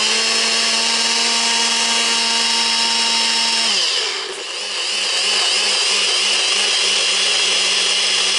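NutriBullet blender motor running at full speed, grinding bell peppers, jalapeño and garlic into a purée. The steady whine drops in pitch with a brief dip in level about four seconds in, then holds at the lower pitch.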